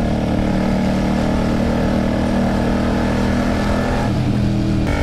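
A Kasinski Mirage 250's V-twin engine runs steadily as the motorcycle rides along. Its pitch drops about four seconds in, and the sound changes abruptly just before the end.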